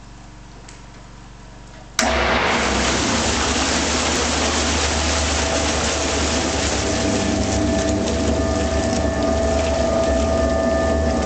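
A faint hum, then about two seconds in a homogenizing machine switches on abruptly and runs steadily: a machine hum with a held mid tone over the rush of the water-and-oil mixture pouring and splashing into the stainless steel tank from the return pipe.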